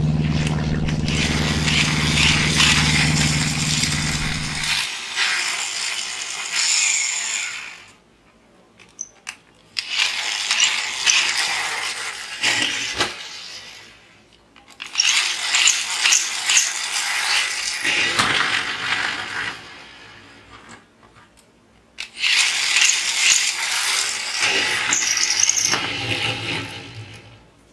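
Plastic toy car's wheels and gearing whirring as it is set running, four times over, each run slowly fading out as the wheels spin down. A low steady hum sounds under the first run and stops about five seconds in.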